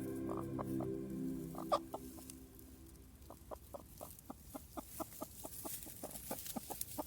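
Background music fades out in the first two seconds. Then a hen clucks in a quick, even run of short clucks, about four a second, the low calling of a mother hen with newly hatched chicks.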